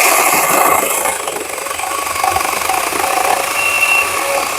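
20-volt battery electric chainsaw running, its chain cutting through a maple hardwood log. It is loudest for about the first second, then steadies a little lower with a continuous whine.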